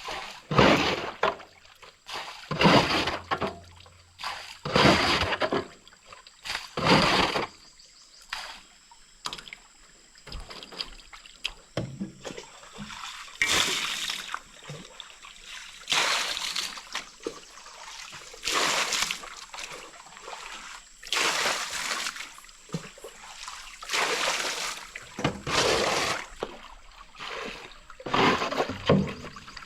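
Water splashing and pouring in repeated strokes, about one every two seconds, over a faint steady high-pitched tone.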